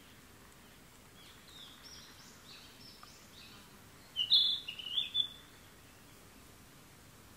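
A songbird singing: a faint run of short high notes, then a louder phrase of several quick notes about four seconds in, over a steady background hiss.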